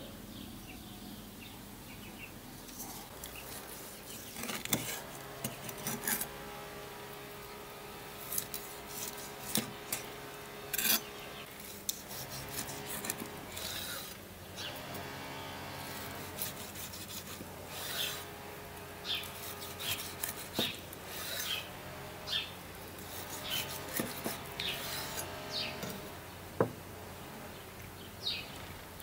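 A chef's knife slicing through a seared picanha steak on a wooden cutting board: repeated short cutting strokes through the crust, with the blade knocking against the board, starting a few seconds in.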